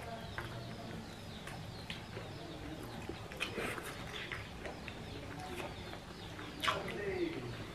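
Quiet eating sounds, chewing and small scattered clicks of hands and dishes, with faint bird calls in the background; a short falling call near the end.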